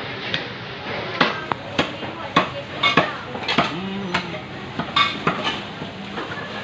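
Fish knife knocking and scraping on a wet wooden chopping block while a snapper is filleted: irregular sharp clicks and knocks, about two a second.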